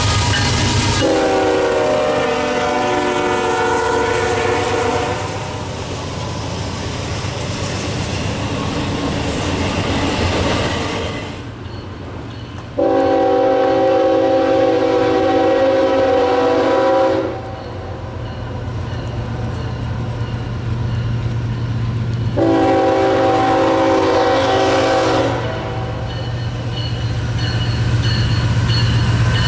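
Locomotive air horn sounding a chord in three blasts, two long and a shorter third, with a fourth starting at the very end: the long-long-short-long pattern sounded for a road crossing. The locomotive's steady engine hum and the rumble of the passing train run beneath.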